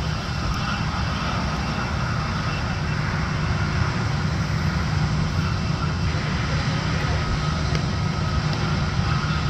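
Airbus A320-200 jet engines running at taxi power: a steady, continuous engine noise with a faint high whine on top, getting slightly louder about four seconds in.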